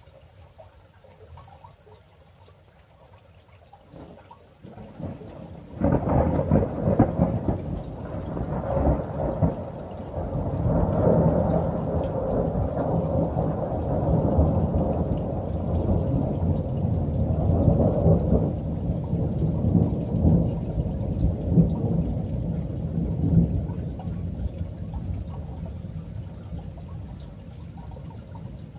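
Thunder: a low rumble builds about four seconds in, breaks into a sudden loud crack near six seconds, then rolls on with repeated swells for nearly twenty seconds before slowly fading.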